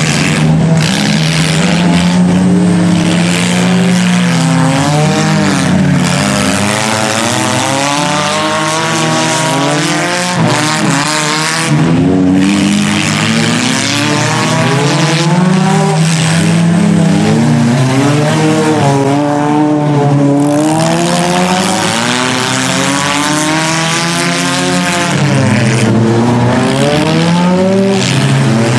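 Demolition derby cars' engines revving as the cars drive around a dirt arena. Several engine notes overlap and keep rising and falling with throttle.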